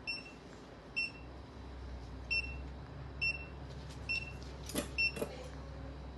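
Short high electronic beeps of a single pitch, about one a second, typical of a surgical monitor's pulse tone. Two sharp metallic clinks come near the end.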